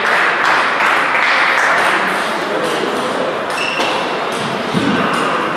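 Table tennis balls clicking irregularly off tables and rackets at several tables in play around a large hall, over a steady background din.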